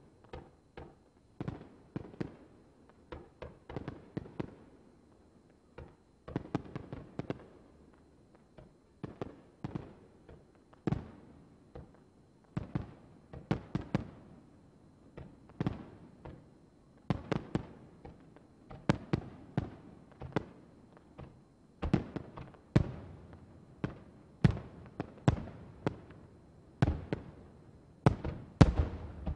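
Aerial firework shells bursting in a rapid, irregular series of sharp booms, each trailing off in an echo, sometimes several a second; the loudest bangs come in a close run near the end.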